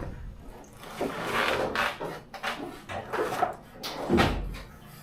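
Rolling tool chest being tilted and handled: a run of scraping and rustling noises with knocks, and a heavier low thud about four seconds in.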